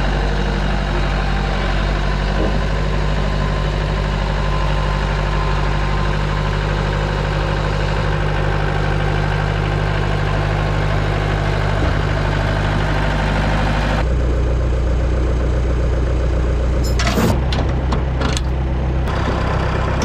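Bobcat skid steer engine running steadily as the machine moves onto the trailer. The engine note changes about fourteen seconds in, and a few sharp clanks follow near the end.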